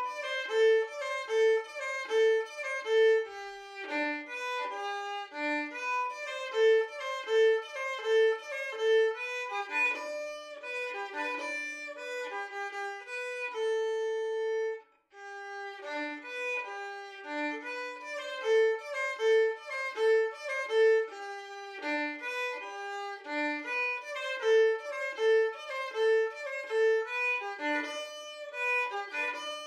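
A violin playing a melody as background music, with several runs of quick repeated notes on one pitch. About halfway through it holds one long note, stops for a moment, then goes on.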